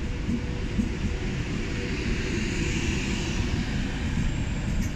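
Class 390 Pendolino electric train pulling out of a station at low speed: a steady low rumble of wheels and running gear with a faint motor hum, and a hiss that swells in the middle and eases again.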